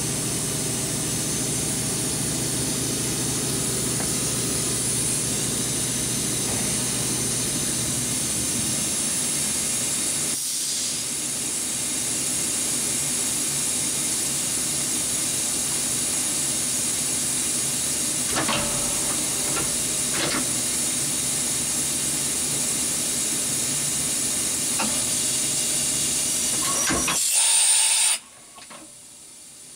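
Kitamura Mycenter 2X vertical machining center spindle running at high speed, around 10,000 RPM, as a steady high whine and hiss. Near the end it swells briefly, then the sound drops off suddenly.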